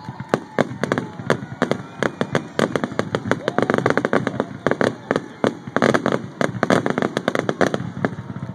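Fireworks going off in rapid volleys: dense sharp bangs and crackling pops, many a second, coming thickest from about two and a half seconds in.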